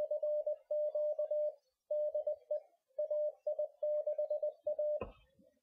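Morse code: a single mid-pitched tone keyed on and off in dots and dashes, ending about five seconds in with a short thump.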